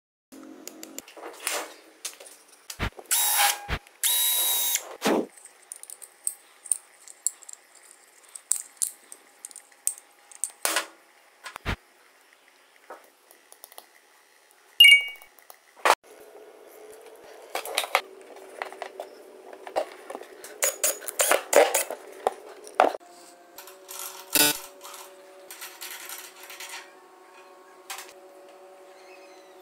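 Hand tools and wire being worked by hand: scattered sharp clicks, clinks and snips of steel wire against diagonal cutting pliers. A short ringing ding comes about halfway, and a faint steady hum runs under the second half.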